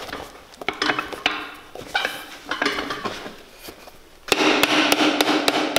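Light knocks and rubbing as leather boot parts are handled, then, a little past four seconds in, a shoemaker's hammer starts tapping on the boot's leather sole, about four strikes a second, over a steady hiss.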